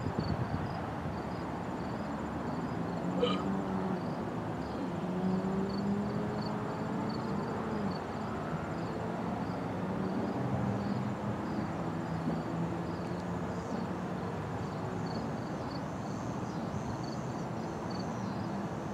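Steady outdoor background of distant road traffic humming, with insects chirping in a regular pulse of about two chirps a second. A small click sounds once, about three seconds in.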